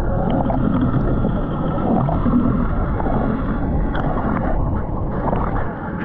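Muffled, steady low rumble of water moving over a submerged GoPro action camera.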